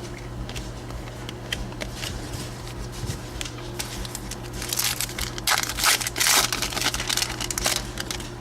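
Trading cards handled with light clicks, then about three seconds of loud crinkling and tearing of a foil card-pack wrapper being torn open.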